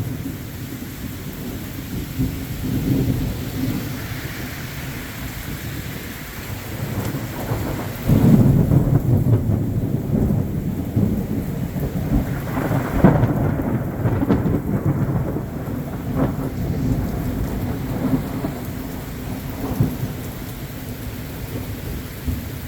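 Heavy rain pouring steadily through a thunderstorm, with thunder rumbling underneath. The rumble grows louder about eight seconds in and swells again around thirteen seconds.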